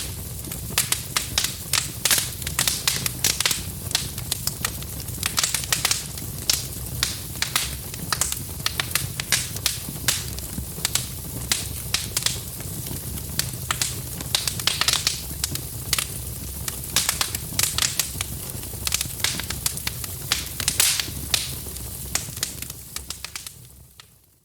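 Wood fire in a fireplace crackling and popping steadily over a low rumble, fading out near the end.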